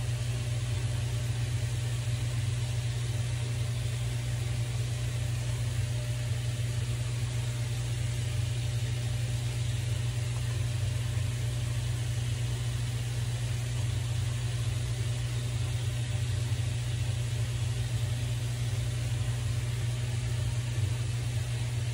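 A steady low hum with an even hiss over it, unchanging throughout, from a running motor or appliance in the room.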